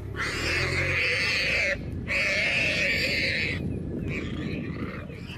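Warthog squealing in distress while lions attack it: two long, high screams of about a second and a half each, then weaker squealing after about four seconds. A low rumble runs underneath.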